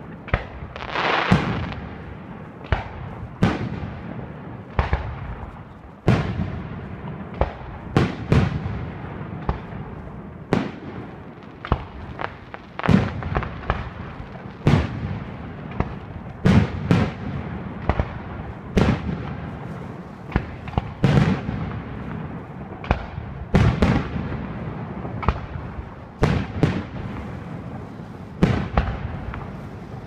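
Aerial fireworks going off in a rapid, irregular series of loud bangs, about one to two a second, each one trailing off in a rumble, as rockets and shells burst overhead.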